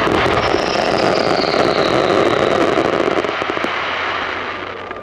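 Pyrotechnics crackling and fizzing in a dense, continuous crackle, with a thin high whistle that falls slightly over the first few seconds. The crackle thins out and fades over the last two seconds.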